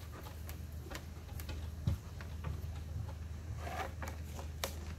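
Scattered light clicks and taps of dogs' claws and plastic plates on a wooden picnic table, with one low knock about two seconds in, over a steady low hum.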